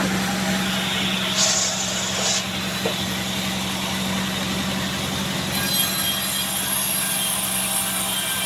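Band sawmill running with a steady engine drone, its blade cutting through a Bayur log. A brighter, high hiss joins briefly about a second and a half in and again from about five and a half seconds.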